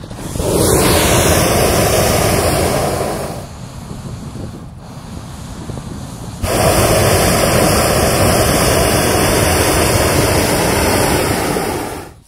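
Hot-air balloon propane burner firing into the envelope during hot inflation, heating the air to stand the balloon up: a roaring blast of about three seconds, then a longer one of about five and a half seconds that cuts off suddenly near the end. Between the blasts the petrol-engined inflator fan runs more quietly.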